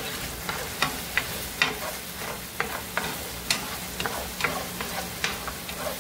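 Garlic and ginger sizzling in oil in a frying pan, with a utensil knocking and scraping against the pan as they are stirred: a steady hiss broken by irregular sharp clicks about once or twice a second.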